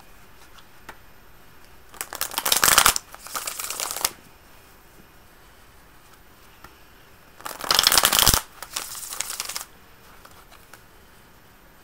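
A deck of tarot cards being shuffled by hand in two bursts of about two seconds each, a few seconds apart; each burst starts loud and dense and then goes on more softly.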